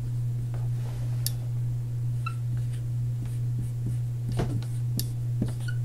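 Dry-erase marker writing on a whiteboard: scattered short scratchy strokes and a couple of brief squeaks, over a steady low hum.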